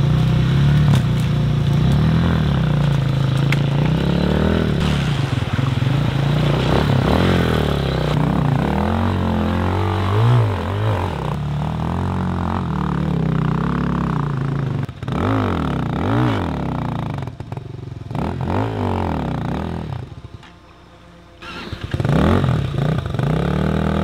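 RPS Hawk 250cc dual-sport motorcycle's single-cylinder engine revving up and down over and over as it is ridden along a creek bank and through the water. Near the end it drops low for a second or so, then revs again.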